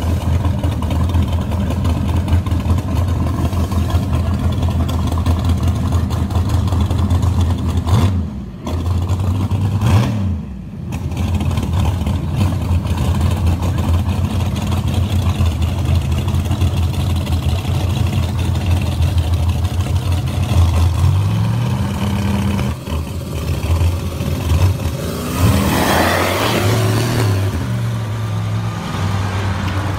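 Two Fox-body Mustang drag cars running at the starting line with a steady, loud engine note, briefly blipped twice. The revs rise shortly past twenty seconds, then both launch about twenty-five seconds in, engine pitch climbing as they pull away.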